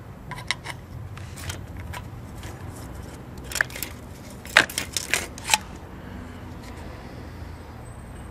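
Sharp plastic-and-metal clicks and knocks of a clutch alignment tool being worked into the splined hub of a clutch friction disc as the disc is handled against another disc. There is a light scatter of clicks in the first two seconds and a louder cluster from about three and a half to five and a half seconds in.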